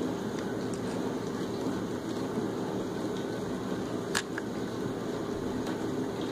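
Steady low machine hum of room noise, with one sharp click about four seconds in as a plastic toy skid loader is handled.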